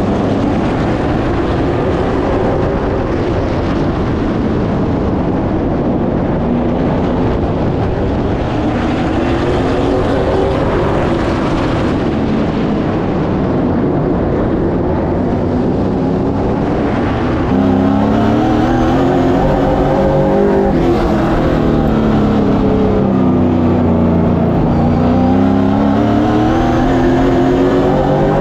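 Onboard sound of a Pro Late Model race car's V8 engine under racing load on a short oval, its pitch rising on the straights and falling into the turns, over and over. About two-thirds of the way in the sound turns slightly louder with a clearer engine note.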